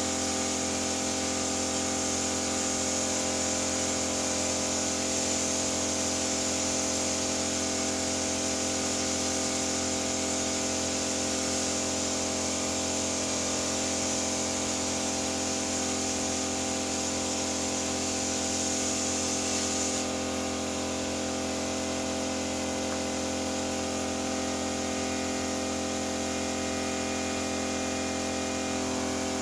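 Pneumatic spray gun hissing steadily as it lays clear coat onto a car body panel, the hiss easing about two-thirds of the way through. A steady humming drone runs underneath.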